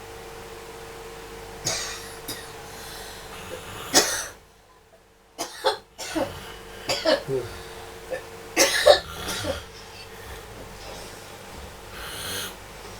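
A person coughing repeatedly, in a run of short sudden coughs with a brief near-silent gap just after the second one.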